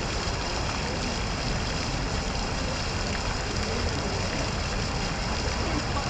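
Fountain water splashing steadily into its basin.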